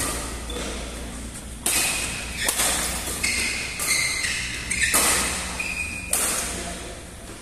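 Badminton rally: rackets smacking the shuttlecock about once a second, each hit ringing in a large hall, with short squeaks of court shoes on the mat between the shots.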